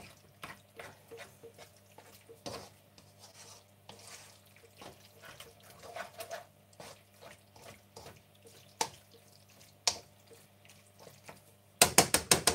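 Utensil clicking and scraping against a stainless steel stockpot while pasta in a thick sauce is stirred, with sticky wet clicks at irregular intervals. Near the end comes a quick run of about eight loud clicks in roughly a second. A low steady hum sits underneath.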